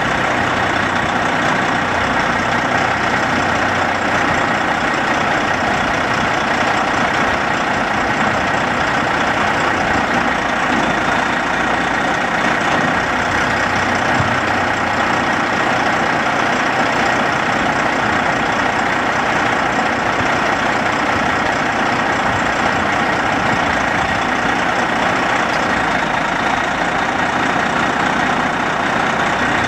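Heavy-duty tow truck's diesel engine idling steadily.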